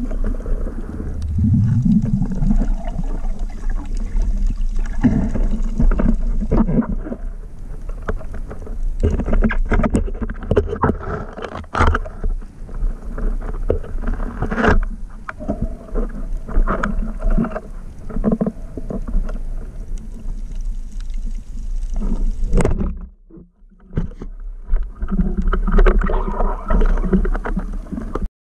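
Muffled underwater noise picked up by a camera in a waterproof housing during a spearfishing swim: a continuous low rumble of moving water, scattered with sharp knocks and clicks. The noise drops away briefly about 23 seconds in.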